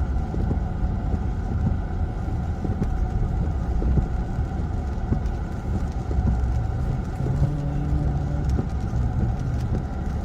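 Car running on the road, a steady low rumble of engine and road noise, with a brief low hum entering about seven seconds in.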